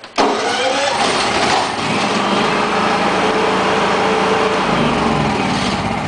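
Honda EU7000iS fuel-injected generator's 389 cc single-cylinder engine started by its electric starter. It catches almost at once and then runs steadily and loud.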